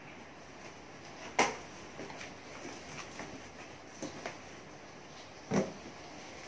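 Cardboard shipping box being opened by hand: flaps pulled back and the packing inside handled, with scattered light knocks and a sharp knock about a second and a half in and another near the end.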